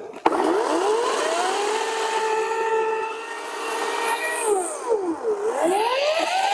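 EGO 56-volt CS1804 18-inch cordless chainsaw cutting branches off a log: its brushless motor spins up to a steady high whine. About four and a half seconds in the pitch drops as the motor winds down, then it spins straight back up to speed.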